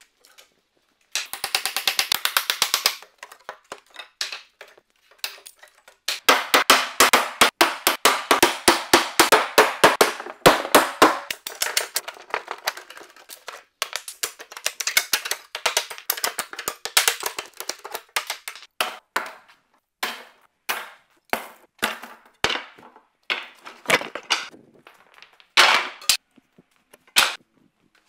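Wooden pallet being knocked apart: a corded power tool runs in short bursts, then a long string of sharp blows from a sledgehammer striking the pallet boards and blocks. The blows come thick and fast at first and thin out to about one a second near the end.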